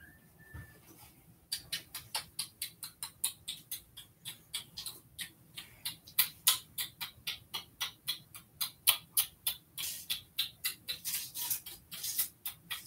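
Rapid sharp clicking or tapping close to the microphone, about five clicks a second and uneven in strength, starting about a second and a half in.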